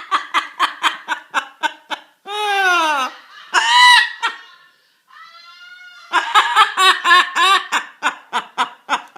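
A parrot imitating human laughter: runs of quick ha-ha pulses, about five a second. In the middle the laughing breaks for a long call that falls in pitch, a second long call and a few quieter short glides. Then the rapid laughing starts again, about six seconds in.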